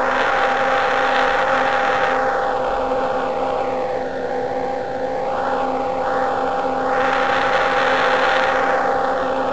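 Shortwave radio receiver hiss carrying Jupiter's decametric radio emission: a rushing noise that swells and fades in slow waves, loud in the first two seconds, weaker in the middle and swelling again near the end. Steady whistle tones sit underneath the noise.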